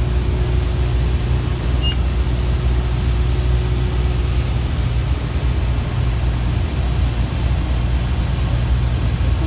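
Steady drone of a light aircraft's engine and propeller heard inside the cabin on approach to land, a deep hum under an even rush of noise. A faint steady tone in the drone fades out about four seconds in.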